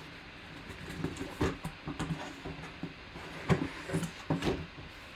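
Cardboard box flaps and a plastic-wrapped mini football helmet case being handled and pulled out of the box: a string of rustles, scrapes and knocks, the loudest about a second and a half in and again in the second half.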